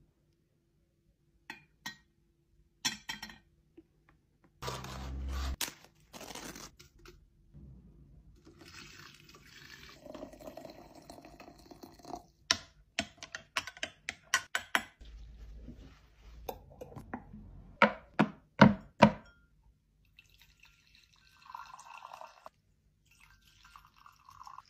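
Tea being made with glassware: scattered clinks and knocks of glass and spoon, hot water poured into a glass teapot, a quick run of glass clinks, and tea poured into glass cups near the end.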